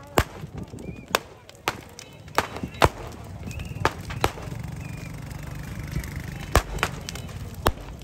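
Firecrackers going off one at a time: about a dozen sharp cracks at irregular intervals, over a low background of crowd voices.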